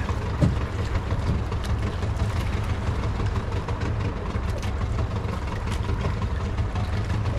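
A fishing boat's engine running steadily with a low drone.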